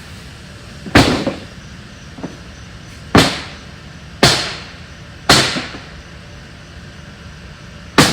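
Heavy blows bashing apart discarded wooden furniture frames: five loud, sharp cracks and bangs spaced one to three seconds apart, with a fainter knock between the first two.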